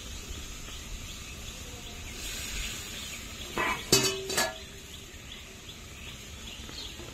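Fish curry simmering in a steel kadai over a wood fire, a soft steady sizzle just after water has been added. A few short clinks come a little past halfway.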